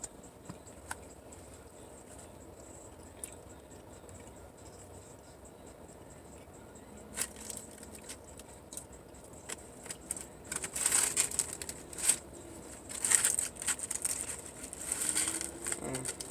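Crackling and crinkling from fried chicken and its paper packaging being handled close to the microphone. It comes in short bursts that start about seven seconds in and grow louder and more frequent over the last six seconds, after a few isolated clicks.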